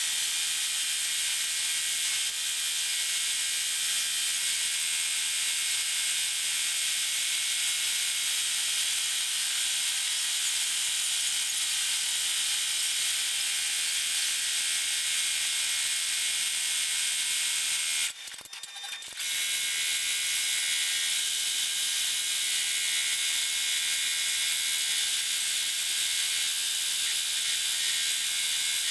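Multi-needle embroidery machine stitching, a steady high-pitched mechanical rattle. It breaks off for about a second roughly two-thirds of the way in, then resumes.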